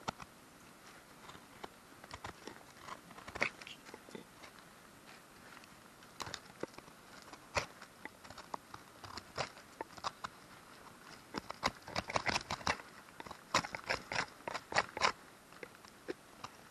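Knife blade carving shavings off a small wooden stick: a run of short, irregular crunchy cuts and scrapes, coming thicker and faster in the last third.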